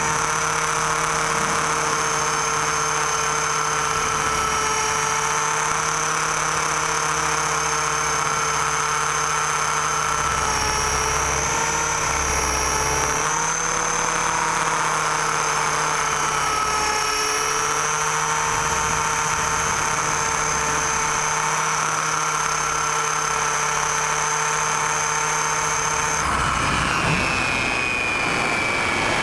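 Radio-controlled model aircraft's motor whining at a steady speed in flight, its pitch wavering slightly. About 26 seconds in the high whine cuts out and the pitch slides down as the motor throttles back.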